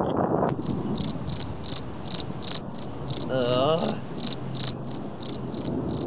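Crickets chirping as a comedy sound effect: short, high chirps at an even pace of about three a second, starting about half a second in. They mark the awkward silence after a joke that fell flat. A brief wavering hum sounds about halfway through.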